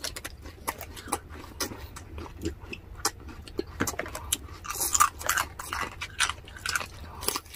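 Close-up crunching and chewing of crispy deep-fried pork skin and raw cucumber: a fast, irregular run of crisp cracks and bites, with a louder cluster of crunches about five seconds in.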